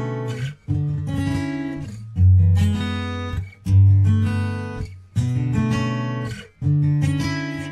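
Background music: chords strummed on a guitar, a new chord about every one and a half seconds, each ringing and fading before the next.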